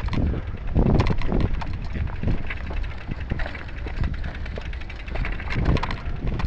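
Footsteps scuffing on a dirt trail and knocks from a mountain bike being pushed uphill, heard as irregular thumps with handling noise on the camera microphone.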